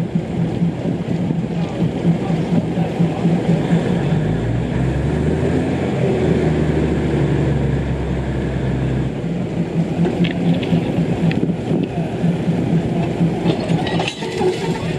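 Diesel railcar running steadily, with a low engine drone that deepens for a few seconds in the middle.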